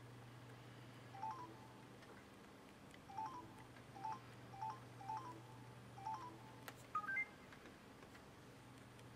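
Samsung YP-T10 MP3 player's touch-key feedback beeps: six short two-tone blips, each stepping up in pitch, as its menu is scrolled, then a quick rising three-note chime with a couple of clicks about seven seconds in. A steady low hum runs beneath.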